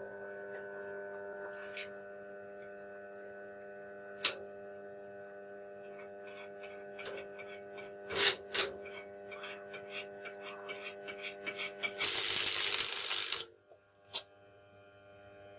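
Small Deca arc welder's transformer humming steadily, with a few sharp cracks as the 1.6 mm rod strikes the arc. Irregular crackling follows, then about a second and a half of loud arc sizzle from the rod burning on thin sheet steel, cut off abruptly.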